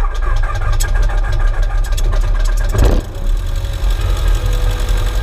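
Cessna 150's Continental O-200 four-cylinder air-cooled engine running just after starting, with a brief rise about three seconds in before it settles to a steady idle.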